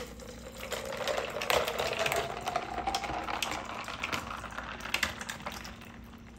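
A creamy nut drink poured from a pitcher into a glass jar over ice: the ice cubes click and crackle many times while the liquid runs in, and the pouring tone rises a little as the jar fills.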